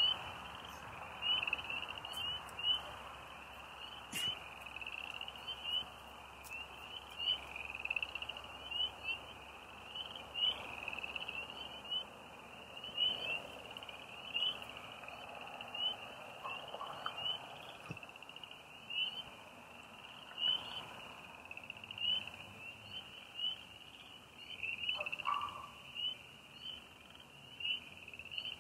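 Night chorus of frogs: many overlapping high-pitched chirping calls repeating without pause.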